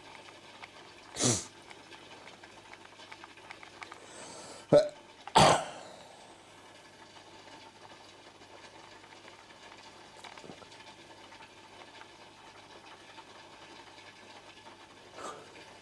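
Steady low hiss and hum of an aquarium's bubbling aeration and filter pump, broken by a few short loud noises: a burst a little over a second in, then a sharp click and another burst around five seconds in.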